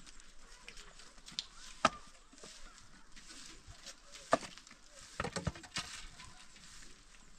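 Wooden sticks knocking together as firewood is handled and stacked against a tree trunk: single sharp knocks about two seconds in and about four and a half seconds in, then a quick cluster of knocks a second later.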